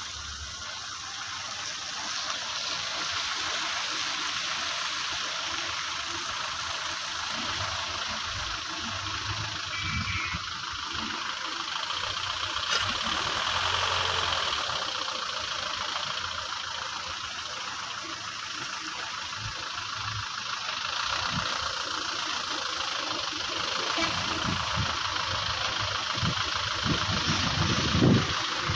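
A car on the move, heard from inside: a steady rush of road and wind noise with a low engine hum underneath and scattered low thumps that come more often near the end.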